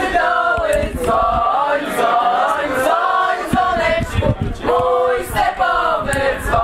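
A mixed group of men and women singing a song together, with long held notes.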